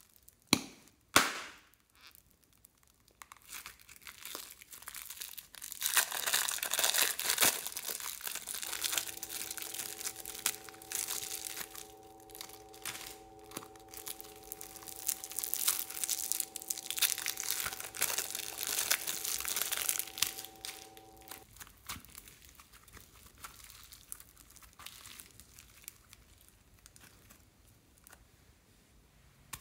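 Plastic piping bags crinkling as hands squeeze slime and foam-bead slime out of them, with dense crackling and squishing that runs for most of the stretch and tails off to scattered soft crackles after about twenty-two seconds. Two sharp clicks come just before it starts.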